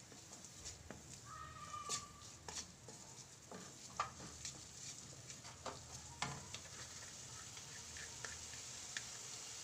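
Wooden spatula scraping and clicking against a stainless steel kadai while stirring chopped onion and green bell pepper frying in oil, over a faint sizzle. The stirring stops about six and a half seconds in, leaving only the faint sizzle.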